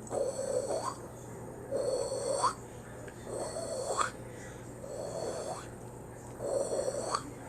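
Cartoon snoring sound effect: a rasping snore ending in a short rising whistle, repeated about every one and a half seconds, five times.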